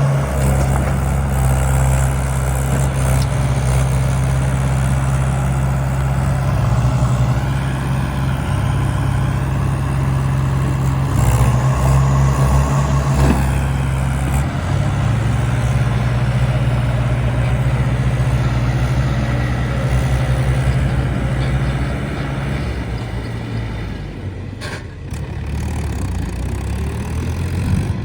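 Heavy diesel engine of working machinery running steadily, its low pitch stepping up and down several times as the load changes, and easing off near the end.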